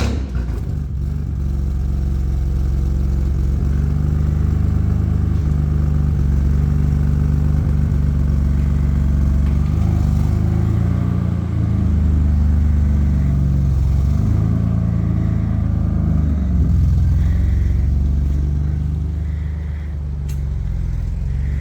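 BMW M4's S55 twin-turbo inline-six warm-started, flaring briefly as it catches and then settling into a steady idle, with small shifts in engine pitch along the way.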